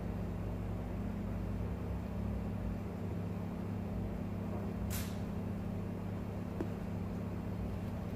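A steady low hum with a few even pitched lines beneath it, and a single short sharp click about five seconds in.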